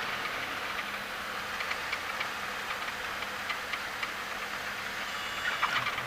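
Cockpit noise of a Cessna 177 Cardinal landing: a steady hiss of the engine at low power and the airflow, with scattered light ticks and rattles that grow busier near the end.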